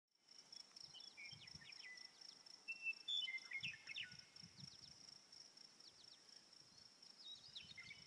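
Faint outdoor ambience: a steady high insect-like trill with scattered short bird chirps, the chirps mostly in the first half.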